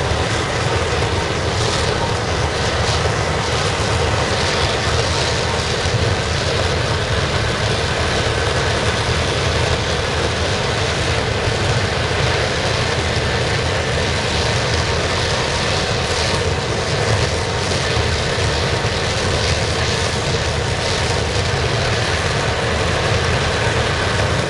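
Waste-oil burner of a scrapping furnace running steadily, burning used motor oil blown in by compressed air: an even, unchanging rush of flame and air with a strong low rumble.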